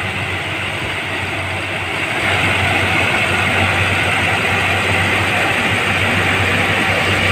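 Corn combine harvester's engine and threshing machinery running steadily, growing louder about two seconds in.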